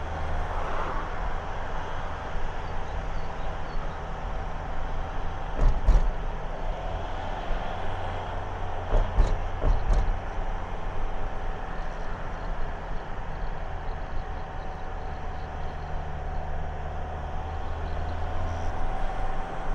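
Car engine and road noise heard from inside the cabin while driving: a steady low drone, with a few thumps about six seconds in and again around nine to ten seconds in.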